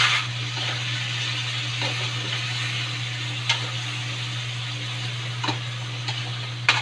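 Pieces of fried chicken sizzling in a wok with onion and garlic as they are stirred with a metal spatula. The spatula knocks against the pan a few times.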